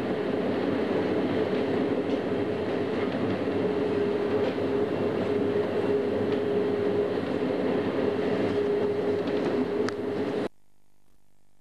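Running noise inside a moving metro train car: a steady rumble of wheels on rails with a steady whine held on one pitch and a few faint clicks. It cuts off abruptly about ten seconds in, leaving only a faint hum.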